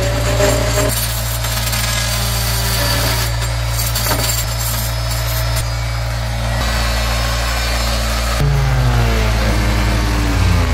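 A motor running steadily with a low hum. About eight seconds in its sound changes, with a wavering pitch rising and falling over it.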